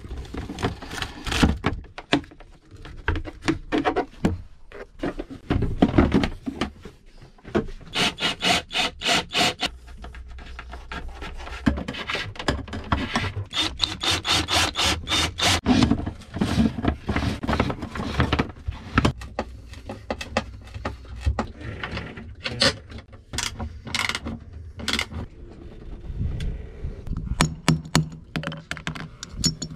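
Hand-tool work on wood: runs of quick back-and-forth strokes, several a second, broken by pauses and separate knocks.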